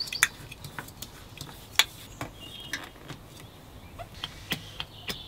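Irregular sharp mechanical clicks, a few a second, from hand work on a Beta Marine narrowboat diesel engine's fuel system, priming it to draw fuel into a newly fitted, empty filter.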